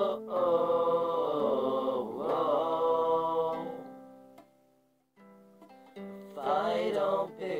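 A man singing a long, held, drawn-out "whoa" over strummed acoustic guitar. The note fades away about four seconds in. After a short, nearly silent gap the guitar picks up again, and the singing resumes about two-thirds of the way through.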